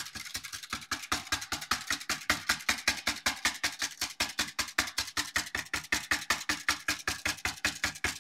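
Wire whisk beating cornstarch into water inside an opened metal can, the wires clattering against the tin walls in fast, even strokes, about six or seven a second.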